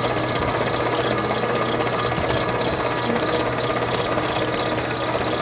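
Electric traction hoists of a suspended swing stage running steadily, a continuous mechanical hum as the platform climbs the building.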